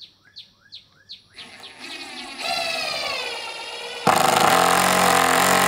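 Cordless impact driver driving a wood screw through two boards. The motor whirs for a couple of seconds, its pitch dipping and rising. About four seconds in, the impact mechanism kicks in with a sudden, louder rapid hammering as the screw meets resistance and is driven home.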